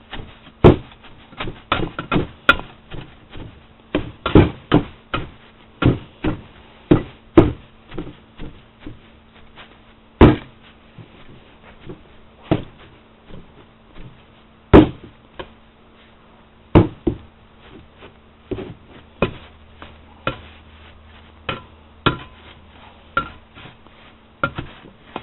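Hammer tamping sawdust packed into a metal popcorn tin: a long, irregular run of knocks, one or two a second, with a few much louder thumps among them.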